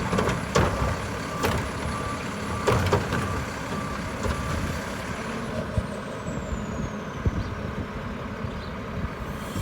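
Mack garbage truck's diesel engine running, with its backup alarm beeping for the first few seconds and several sharp knocks in the same stretch.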